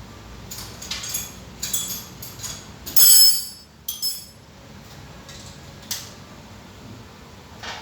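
Metal hand tools clinking and ringing against each other and the engine parts, in a string of separate clinks. The loudest is a ringing clatter about three seconds in.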